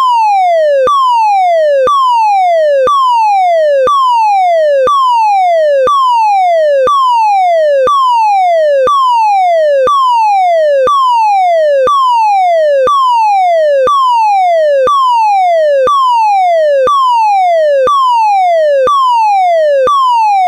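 German DIN 33404-3 fire evacuation alarm tone, electronic: a loud tone sliding steadily down in pitch over one second, from high to mid, then jumping straight back up and repeating without a gap, about once a second. This falling-tone signal is the German standard call to evacuate a building.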